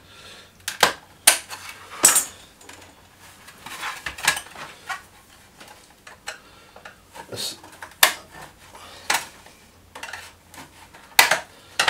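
Screwdriver prying at the plastic casing of a WD My Cloud drive enclosure: irregular sharp clicks and clacks of metal on plastic as the clips are worked loose, with several in quick succession near the end.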